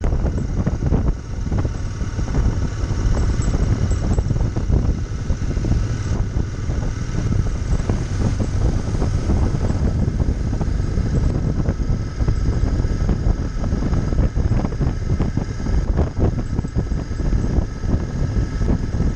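Wind buffeting the microphone of a handlebar-mounted camera on a moving motorcycle, with the Royal Enfield Interceptor 650's parallel-twin engine running steadily underneath.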